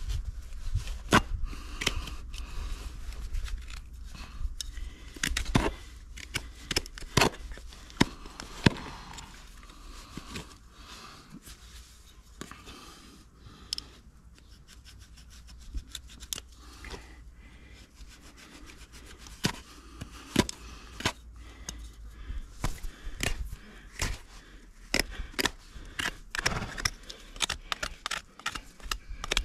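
Hoof knife paring the sole and frog of a horse's hoof: irregular short scraping cuts with sharp clicks.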